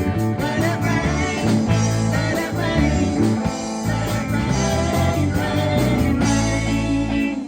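Rock song with guitar, a steady beat and singing.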